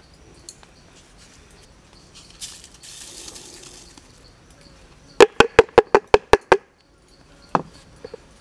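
White granulated seasoning pouring from a coconut-shell bowl into a wooden mortar with a soft hiss, then a quick run of about eight loud, hollow knocks of the shell against the wooden mortar, and one more knock a second later.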